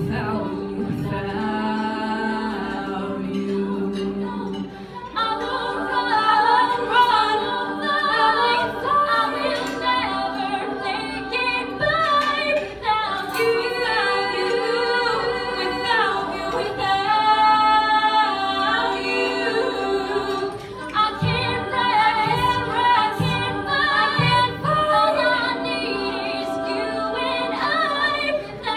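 Female a cappella group singing into microphones: a lead voice over sustained backing harmonies, with the backing voices swelling fuller about five seconds in.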